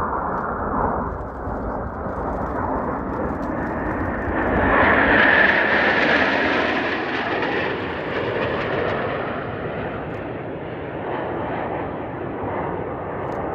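Several Northrop F-5E Tiger II fighter jets flying past in formation. Their jet noise swells to its loudest and brightest about five seconds in, then eases into a steady, duller drone.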